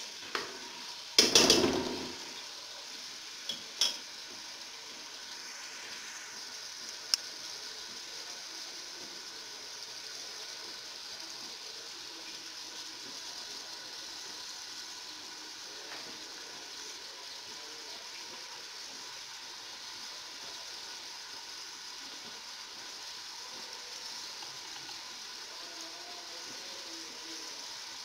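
Chicken and onions sizzling steadily in oil in an aluminium pressure cooker. A metal spatula scrapes and clatters against the pot about a second in, with a couple of light knocks soon after.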